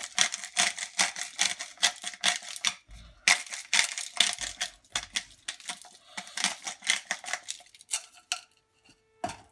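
Hand-twisted salt grinder grinding salt onto a baking pan: a fast run of crackling clicks, about four or five a second, that pauses briefly about three seconds in and stops near the end.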